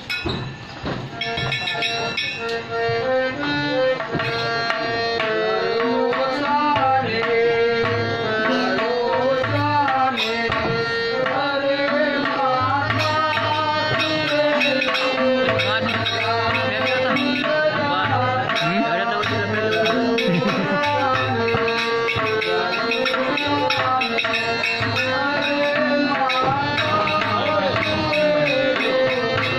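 Instrumental music with tabla keeping a steady rhythm under a melody of held notes that step up and down.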